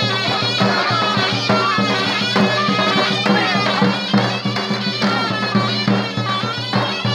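Live Turkish folk dance music: a davul drum beating a steady rhythm under a reedy wind instrument playing an ornamented melody over a steady low drone.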